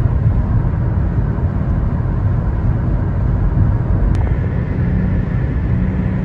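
Loud, steady low rumbling noise, heaviest in the bass, with no voices.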